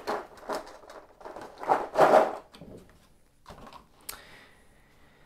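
Clear thermoformed plastic insert for miniatures being handled, with plastic rustling and light knocks, then a single sharp click about four seconds in.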